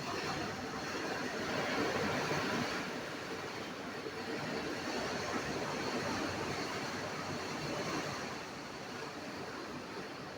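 Heavy rain falling in strong wind, a steady rush that swells and eases.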